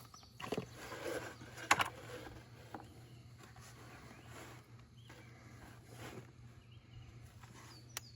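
A few light knocks and handling clatter over a low steady hum, with faint bird chirps in the background.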